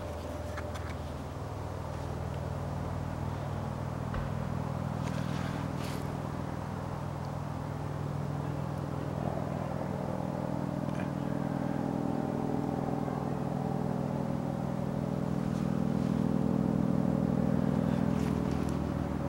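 A steady low engine hum that slowly grows louder, swelling near the end.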